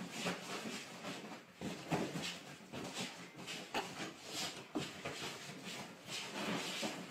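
A bull terrier racing and leaping about on a bed, its paws thudding and scrabbling on the mattress amid rustling sheets and pillows, in an irregular run of bumps and rustles.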